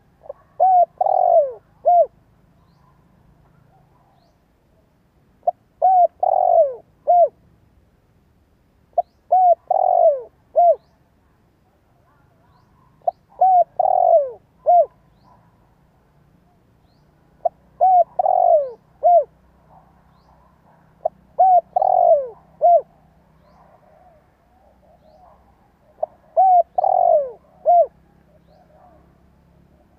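Spotted dove cooing in a repeated phrase, seven times about every four seconds. Each phrase is a short coo, a longer falling coo and a short closing note. It is a decoy dove's cooing of the kind played to set other doves cooing.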